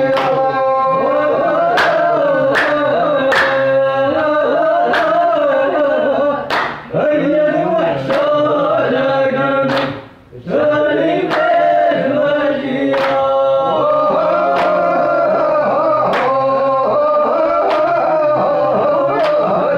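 A group of men singing a traditional folk song together, with drawn-out wavering notes, kept in time by handclaps about once a second. The voices break off briefly about halfway, then take up again.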